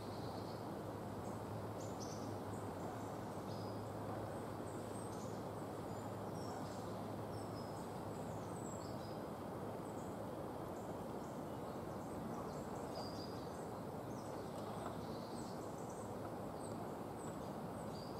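Steady outdoor background noise, a low hiss and rumble, with scattered short, high chirps and whistles from small birds calling in the background.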